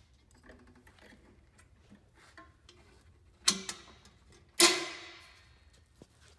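Two sharp metallic clanks about a second apart, each ringing briefly, as metal parts of the snowmobile's tuned exhaust pipe are handled and refitted, with light clicks of handling in between.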